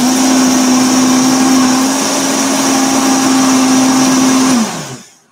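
Old Vitamix blender motor running steadily, blending a fruit-and-greens smoothie. It is switched off about four and a half seconds in and winds down, its pitch falling as it stops.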